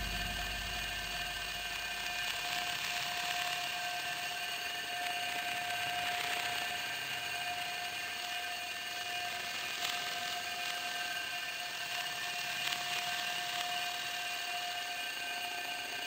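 Scary ambience sound effect: an eerie steady drone of several held high tones over a hiss, as a deep rumble fades away in the first second.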